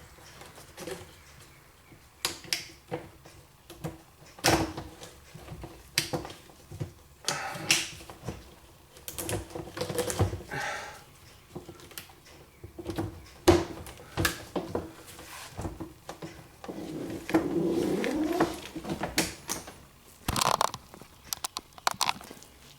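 Irregular clicks, knocks and rattles of a GE dishwasher's inner door panel and its parts being handled and fitted back on. A louder, drawn-out noise comes about three-quarters of the way through.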